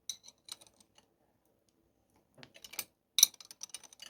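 Light, irregular metallic clicks and ticks from a motorcycle chain press tool and chain being worked as the connecting-link side plate is pressed on. There are a few clicks at the start and a denser run of them past the middle.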